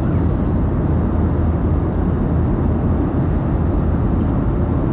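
Steady cabin noise of an Airbus A320 in cruise: a constant low rumble of engines and airflow that does not change.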